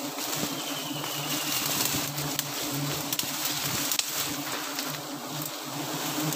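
A swarm of wild honeybees buzzing around their exposed comb as it is smoked, a steady droning hum. A few light clicks are heard over it.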